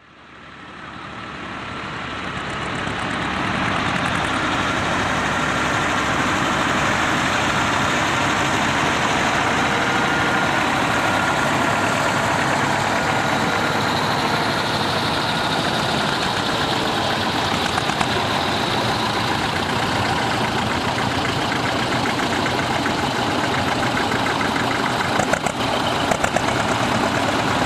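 Several vintage tractor engines running together, a dense steady engine noise that fades in over the first few seconds.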